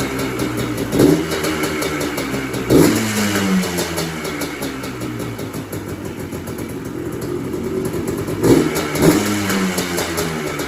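Yamaha Blaster ATV's 195cc two-stroke single-cylinder engine running, blipped up in revs a few times: about a second in, near three seconds, and twice near the end, with steadier running between.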